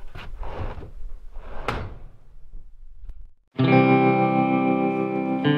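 Swishing scrapes and knocks of gear being shifted around inside a wooden shed. A moment of silence about three and a half seconds in, then electric guitar music with sustained distorted chords comes in loud.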